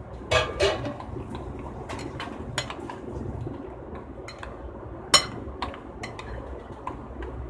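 A spoon stirring yogurt and soaked pakoras in a cut-glass bowl, clinking against the glass in irregular taps, the sharpest clink about five seconds in.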